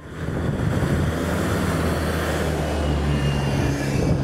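Steady engine rumble mixed with a wind-like hiss, its low hum shifting slightly in pitch about three seconds in.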